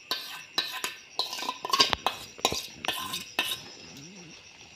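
Spoon stirring and scraping melted soap mixture in a steel pot, with a run of sharp clinks against the metal and the glass bowl, dying down after about three seconds.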